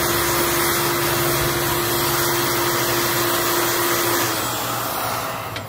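Heat gun blowing a steady hiss of hot air onto plastic to soften the adhesive underneath, with a motor hum that stops about four seconds in; the airflow then fades near the end.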